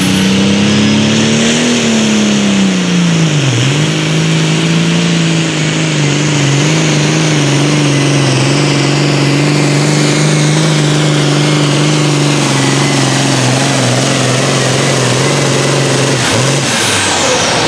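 Modified John Deere 6030 pulling tractor's diesel engine at full throttle, hauling the weight-transfer sled. The engine pitch climbs for about two seconds, dips sharply about three and a half seconds in, then recovers and holds with a slow sag. Near the end the engine is cut and the pitch drops suddenly, with a high whine falling away.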